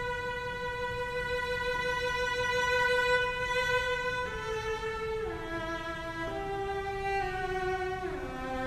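Solo cello bowed in a slow melody: one long held high note for about four seconds, then a falling phrase of shorter notes with a slide down near the end.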